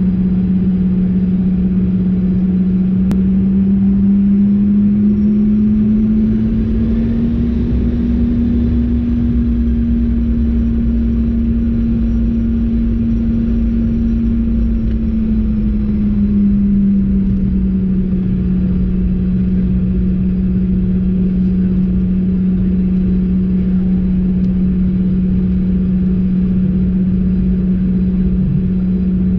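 Cabin noise of a Bombardier CRJ-200's rear-mounted GE CF34 turbofans during taxi: a steady engine hum with a faint high whine over a low rumble. A few seconds in the pitch rises as the engines spool up slightly, holds for about ten seconds, then settles back down.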